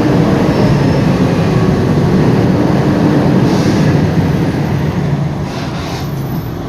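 Mercedes-Benz O-500UA articulated bus engine running under way with its ZF automatic gearbox, a loud steady drone. The drone eases off about five seconds in, with brief hissing near the middle and end.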